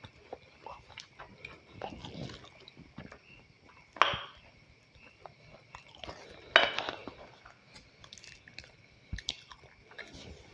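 A person chewing a mouthful of fried rice and chicken nugget close to the microphone: small wet clicks and crunches, with two louder noisy bursts about four and six and a half seconds in.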